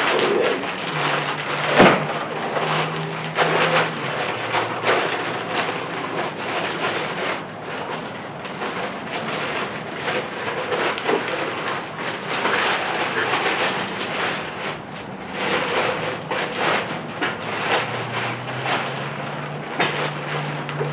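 Engine parts being handled in a workshop: scattered knocks and clatter, with one sharp knock about two seconds in, over a steady background hiss.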